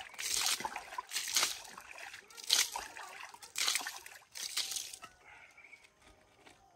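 Water splashing and sloshing in a 90-litre tub in about five bursts over the first five seconds, as some of the water is taken out to lower the level.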